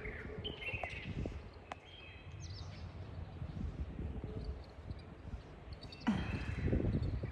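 Small birds chirping in short, scattered calls over a steady outdoor background noise, with a louder brief sound in the last second.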